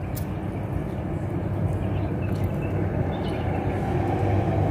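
Steady low rumble of background machinery or traffic that grows slightly louder, with a few faint clicks of crab shell being picked apart by hand.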